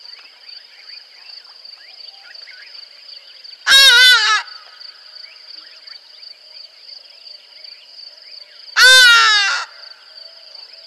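A large bird gives two loud, harsh calls with a wavering, falling pitch, each under a second long and about five seconds apart, over a steady high-pitched insect chorus.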